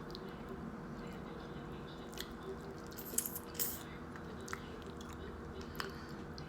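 Close-up chewing and biting of a grinder sandwich, with wet mouth smacks and scattered short crunchy clicks; a small cluster of louder ones comes about three seconds in.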